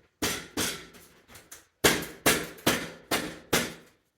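A series of hammer blows: two strong strikes, a few lighter taps, then five strong strikes about twice a second, each ringing briefly and fading.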